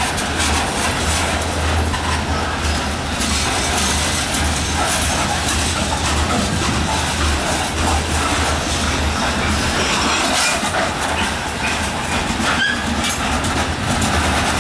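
Covered hopper cars of a slow freight grain train rolling past, steel wheels on the rails making a steady rumble with scattered irregular clicks.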